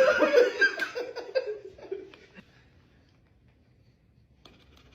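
People laughing, fading away after about two seconds.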